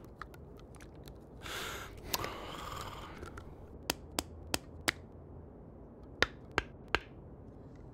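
A strained breath, then sharp clicks on a food tin being worked by hand without a can opener: four quick clicks, a short pause, then three more.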